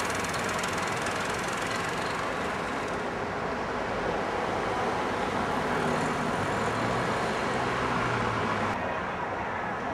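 Steady city traffic noise, a continuous rumble and hiss, with an engine's low hum coming up about two-thirds of the way through. The higher hiss drops away abruptly near the end.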